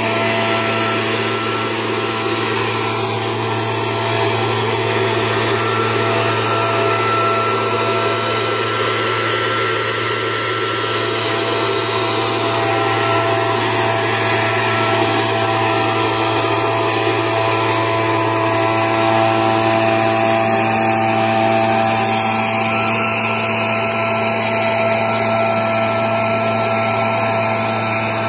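Cifarelli MB90 backpack power mist-blower running steadily while spraying: the two-stroke engine's drone with the rush of air from its blower and nozzle, holding an even pitch and level.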